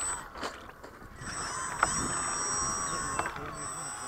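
Electric motor and propeller of a radio-controlled floatplane starting up about a second in, then a steady high whine as the plane taxis out across the water, its pitch dipping briefly near the end.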